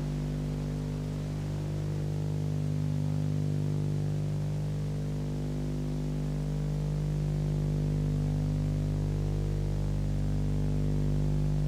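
Steady electrical hum and buzz with a faint hiss underneath, unchanging throughout: the sound track of a blank stretch of videotape.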